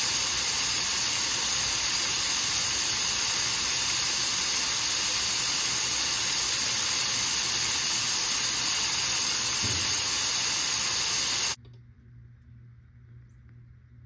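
Vacuum brake bleeder running with a loud, steady hiss of air while it draws brake fluid out through the rear caliper's bleeder valve during a brake flush. The hiss cuts off suddenly near the end.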